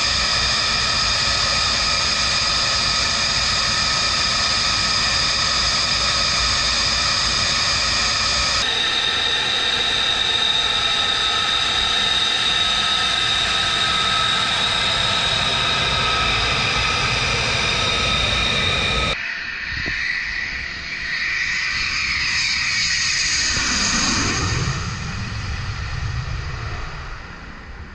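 The F135 turbofan of an F-35 Lightning II running with a steady high whine. About two-thirds in the sound cuts to a jet going past, its pitch sweeping as it passes and fades away.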